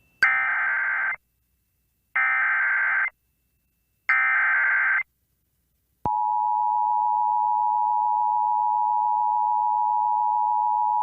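NOAA Weather Radio Emergency Alert System header: three short buzzing digital data bursts about a second apart, then a steady alert tone that starts about six seconds in and holds. It marks the start of a new severe thunderstorm warning broadcast.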